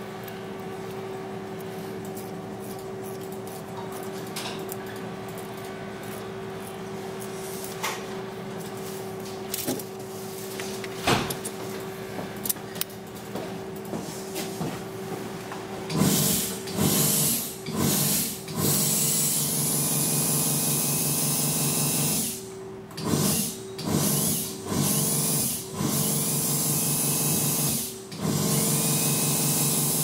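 Dental slow-speed handpiece with a latch-type contra-angle and prophy cup running: a steady whine with a few clicks of handling, then from about halfway through it is run up louder in bursts with a rush of air, stopping and starting several times.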